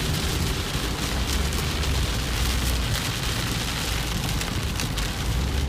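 Heavy rain hitting a car's roof and windshield, heard from inside the moving car as a steady hiss, over a constant low rumble from the engine and tyres on the wet road.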